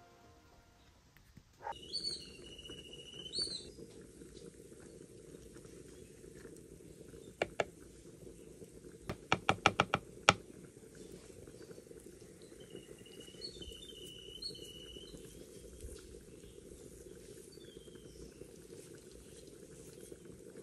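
Birds chirping in short whistled calls, in two spells, over a steady low background noise. Just before the middle, a quick run of about six sharp taps, a metal spoon knocking against a clay cooking pot.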